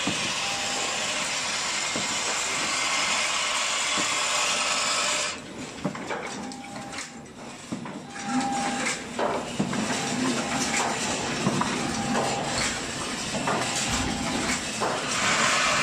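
Automatic thermocouple tip assembling machinery running in a workshop. A steady hiss plays for about the first five seconds, then cuts off abruptly. After that come irregular mechanical clicks and clatter with brief short tones.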